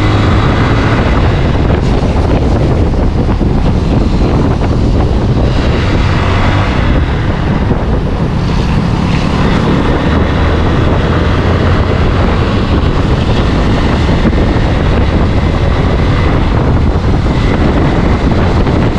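Motorcycle engine running under way, mixed with a loud, steady rush of wind on the microphone.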